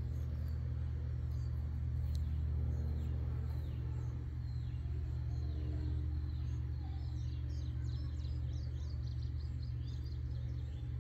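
Outdoor background: a steady low rumble with a faint steady mechanical hum. A bird chirps in a quick run of short notes from about six to nine seconds in.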